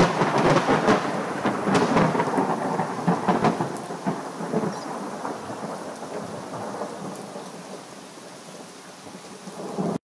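Thunderstorm: a close thunderclap with sharp crackling over the first few seconds, then rumbling away and slowly fading over steady rain, with a short swell again near the end.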